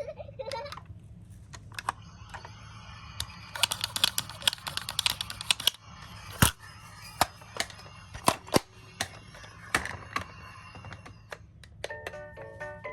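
Hard little clicks and clattering from toy minicars being handled, with a dense run of rattling in the middle and scattered single clicks after it. Music begins near the end.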